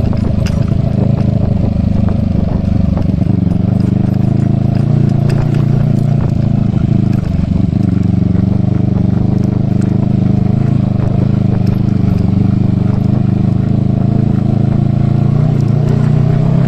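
Kawasaki Eliminator motorcycle engine running steadily and smoothly, with a deep even exhaust note; its pitch dips briefly about seven seconds in and rises a little near the end.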